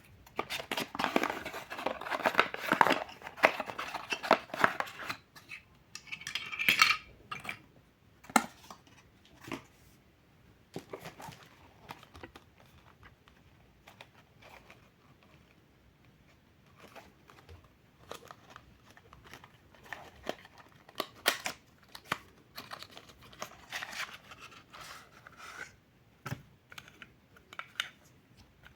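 Plastic parts and packaging being handled: dense rustling and crinkling for the first five seconds or so, a short burst again a little later, then scattered clicks and taps.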